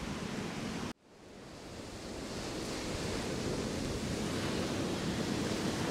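Sea surf breaking and washing up a beach, with wind buffeting the microphone. The sound cuts out abruptly about a second in, then fades back up to a steady level.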